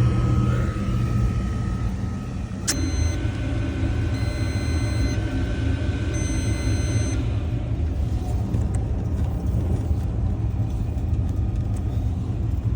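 Rinnai tankless water heater running at high fire, its burner and combustion fan making a steady low rumble, with a sharp click under three seconds in followed by a steady high whine for about four seconds. The flame is faltering at high fire, which the technician puts down to a venting issue.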